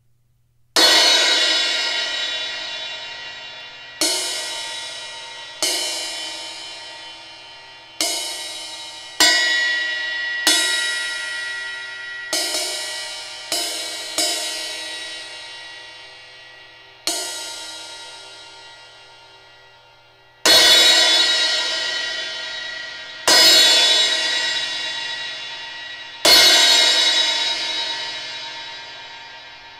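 Zildjian A Custom Projection 16-inch crash cymbal struck about thirteen times, each crash ringing out and fading before the next. The strikes come one to four seconds apart, and the last three are the hardest and fullest.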